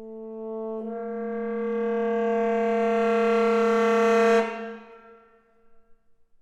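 Reed quintet of oboe, clarinet, saxophone, bass clarinet and bassoon holding a sustained chord that swells louder for about four seconds, then cuts off together, leaving a short ring of hall reverberation.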